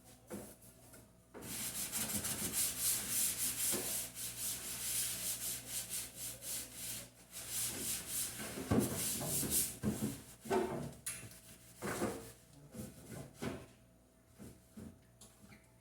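Rapid back-and-forth scrubbing strokes on a refrigerator part for about six seconds, followed by scattered knocks and handling sounds as the parts are moved.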